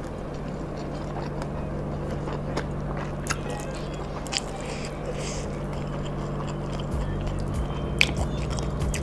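Close-miked chewing of a mouthful of rice and side dishes, with a few sharp moist clicks from the mouth, over a steady low hum.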